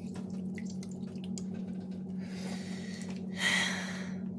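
Water dripping with small clicks, then a short rush of water near the end, over a steady low hum.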